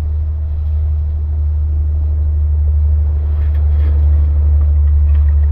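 Wind buffeting the microphone outdoors, a steady low rumble, with faint rustling of handled material from a little past the middle.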